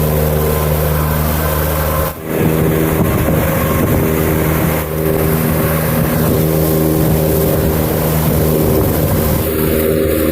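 Boat engine running steadily at a constant speed, with wind noise on the microphone; the sound briefly dips twice, about two and five seconds in.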